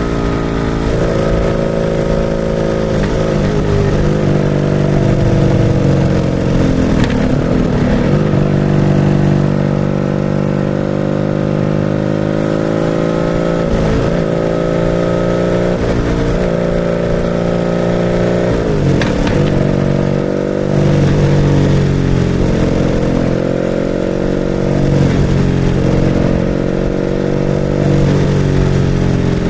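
BMW R nineT's boxer-twin engine running through a Pro Race GP S1 exhaust under way, its pitch dipping sharply and climbing back again several times as the revs rise and fall.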